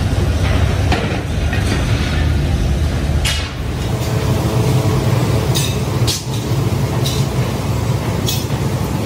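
Heavy factory machinery running with a steady low rumble, with sharp metallic clinks every second or two.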